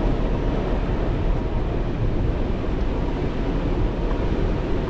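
Steady rumble of a 4WD vehicle running off-road, with wind buffeting the microphone.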